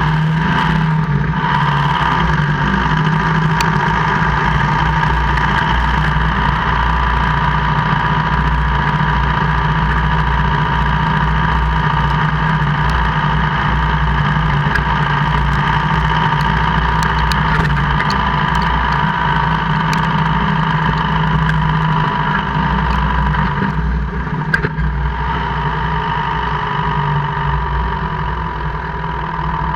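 2002 Jeep Cherokee KJ running steadily, with scattered sharp clicks through the middle and one louder knock near the end. This is the gear-grinding/clicking noise that the owner hears only in 4H or 4L, never in 2H, and cannot yet explain.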